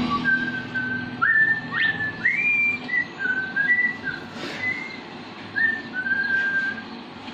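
Someone whistling a casual tune: a single clear whistled line of held notes stepping up and down, several of them reached by quick upward slides, stopping shortly before the end.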